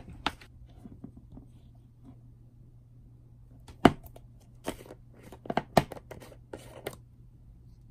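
Clear plastic slime tub being handled and its lid worked open: a series of sharp plastic clicks and snaps, the loudest about four seconds in, then a quick cluster of clicks over the next three seconds.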